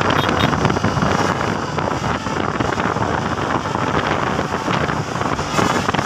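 Heavy wind rushing over the microphone on top of steady road and engine noise from moving traffic.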